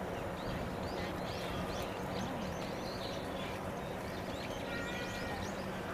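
Small birds chirping and twittering, many short high calls throughout, with a brief whistled note about five seconds in, over steady outdoor background noise.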